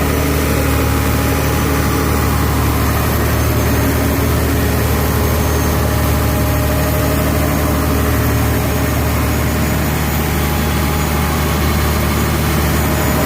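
Engine of a 200 kW generator set running steadily at an even speed, with a constant low hum.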